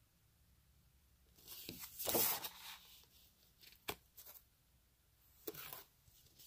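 Sheets of 12x12 patterned scrapbook paper being handled and swapped: a paper rustle about a second and a half in, a sharp tap near the middle, and a shorter rustle near the end.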